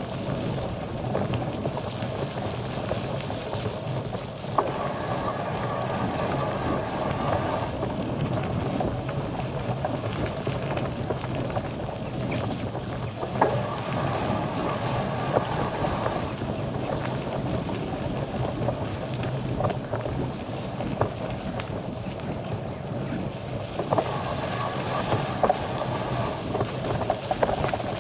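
Steady rolling noise from a bicycle riding along a tarmac lane, tyres humming on the road with wind on the microphone, and occasional sharp clicks.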